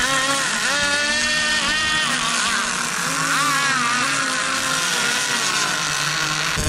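Radio-controlled model race boat running flat out across the water, its motor whining at high revs with the pitch rising and falling as the throttle and load change.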